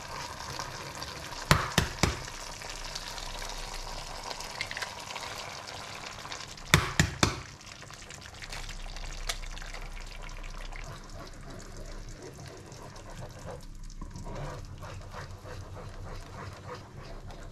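Tomato sauce sizzling in a frying pan as a spatula stirs it. There are short clusters of sharp knocks about a second and a half in and about seven seconds in; the second cluster is an egg being cracked against the pan just before it drops into the sauce.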